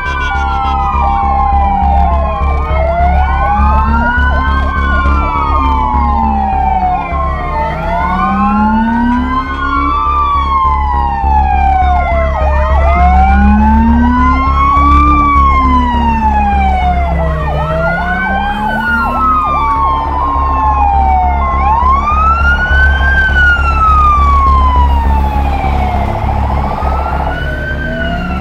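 Several emergency-vehicle sirens wailing at once, their slow rising and falling glides overlapping. A two-tone hi-lo siren cuts in now and then. All of it sits over a steady low engine rumble.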